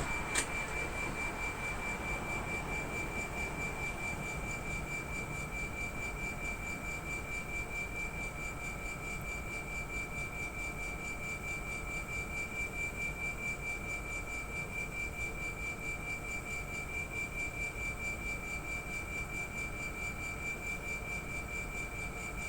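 Air-conditioner outdoor unit's compressor running with a steady high-pitched whine and a fainter lower tone beneath it, over a low hum: the abnormal compressor noise under investigation. A short click about half a second in.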